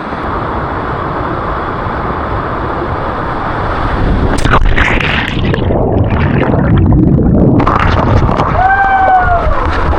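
A body plunging into water about four seconds in: a sharp splash, then a few seconds of muffled, churning water sound, as if heard from under the surface, before it opens up again. A brief shout near the end.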